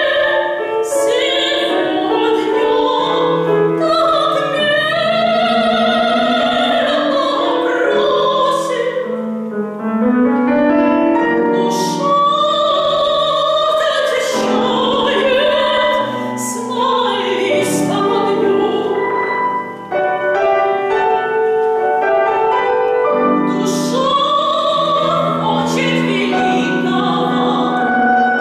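A woman singing an operatic vocal line with vibrato, accompanied by piano and strings of a chamber ensemble.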